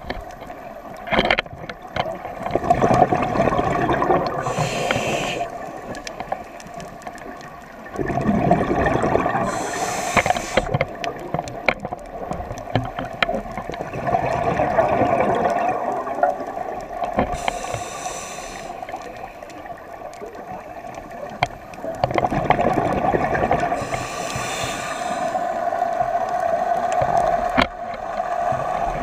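Scuba diver breathing through a regulator underwater. Each inhale is a short hiss, and each exhale is a longer gurgling rush of bubbles, repeating every six seconds or so.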